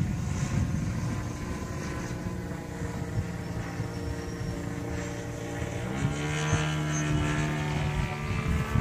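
Radio-controlled model airplane's engine running in flight overhead: a steady drone whose pitch shifts about six seconds in.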